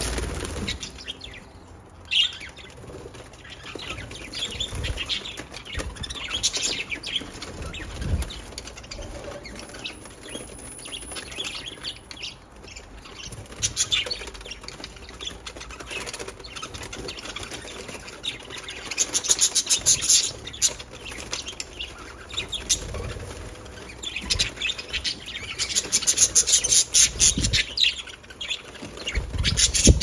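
A flock of budgerigars chirping and chattering, with wings fluttering now and then. The chatter grows busiest about two-thirds of the way through and again near the end.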